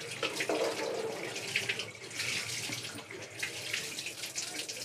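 Fish curry gravy at a full boil in a metal pot, bubbling with many small irregular pops.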